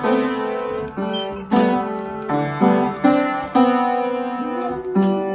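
Piano notes struck one after another by a beagle-type dog's front paws, with the dog howling along; near the end a single long howl is held.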